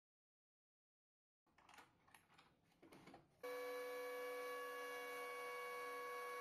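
Silence, then a few faint clicks and knocks, then about three and a half seconds in a Makita electric hand planer, mounted upside down as a jointer, is heard running steadily: an even whine of several held pitches with no change in speed.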